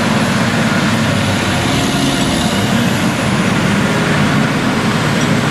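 Big diesel engines of a tracked Claas Challenger 95E and a New Holland T9 articulated tractor running hard under load as they pull against each other on a chain. The sound is loud and steady.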